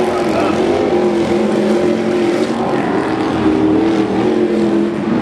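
Stadium Super Truck race trucks' engines running hard, the pitch rising and falling as the drivers lift off and get back on the throttle through the jumps.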